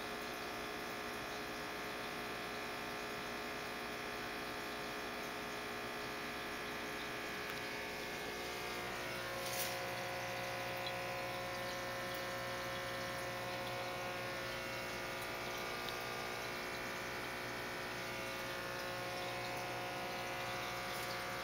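Aquarium pump humming steadily, with a single brief click about ten seconds in.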